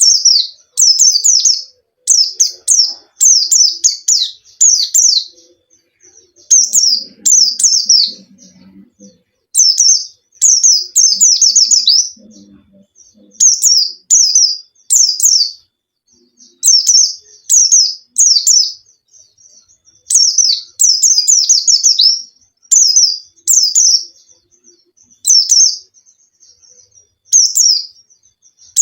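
Pleci (a Zosterops white-eye) singing in full voice, in high, rapid chirping bursts. Each burst is about a second of quick falling notes, and the bursts repeat with short pauses. This is the kind of song used to coax a silent pleci into singing.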